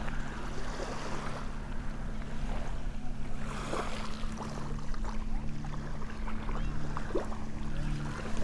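Wind on the microphone over small waves lapping at the shoreline, with a steady low hum underneath and faint crunching footsteps on shelly sand.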